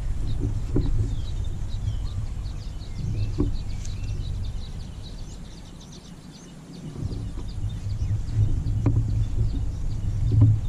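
Birds chirping in short, high calls over a low outdoor rumble that fades about six seconds in and then comes back.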